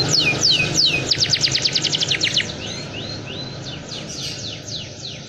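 Domestic canary singing: quick downward-sweeping notes, then a fast trill of about a dozen notes a second, then a few short rising notes, the song growing fainter in the second half.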